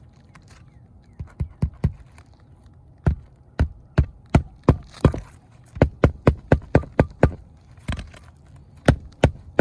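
Roofing nails being hammered by hand into asphalt shingles. The sharp hammer blows come in quick runs of several strikes each, with short pauses between nails, as the lifted shingles are fastened back down.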